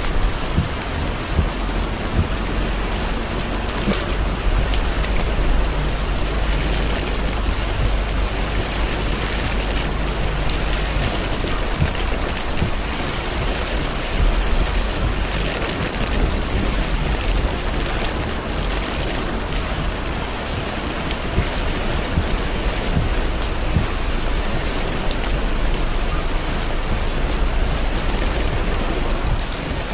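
Torrential rain falling on a car's roof and windshield, heard from inside the cabin as a dense, steady hiss with scattered sharper drop hits over a constant low rumble.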